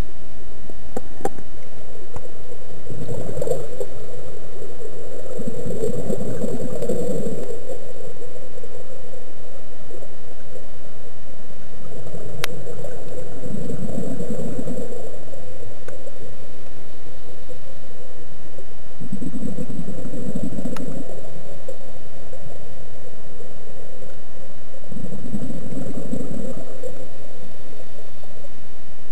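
Scuba diver breathing underwater through a regulator: exhaled bubbles gurgle in four bursts a few seconds long, spaced several seconds apart, over a steady faint hum.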